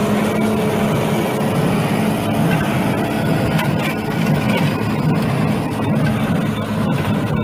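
Farm tractor engine running steadily with a hay baler working behind it, with a few light knocks now and then.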